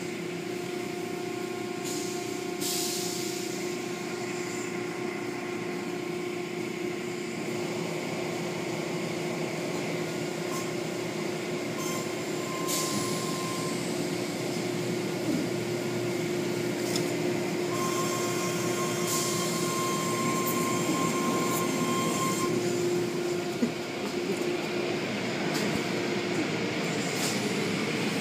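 Automatic tunnel car wash running: a steady machinery hum under spraying water and the swish of cloth curtains and spinning brushes, getting a little louder near the end as the brushes come right up close.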